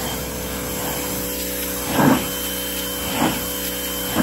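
Giraffe Tools 2200 psi, 1800 W electric pressure washer running steadily, its motor and pump humming while the wand's jet sprays, broken by a few short louder bursts about a second apart.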